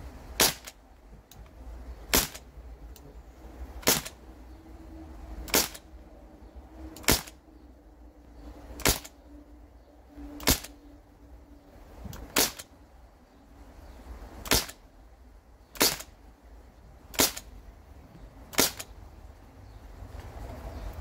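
Crosman 1077 semi-automatic CO2 air rifle fired twelve times in a row, one sharp crack about every one and a half to two seconds. Twelve shots is one full 12-shot rotary magazine.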